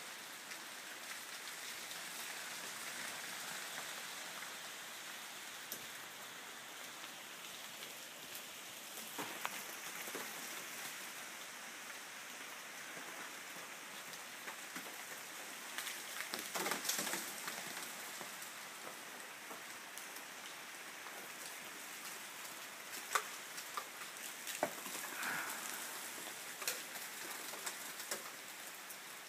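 Ice and drips falling through ice-coated tree branches: a steady rain-like patter with scattered sharp ticks, and a louder crackling rattle about two-thirds of the way through.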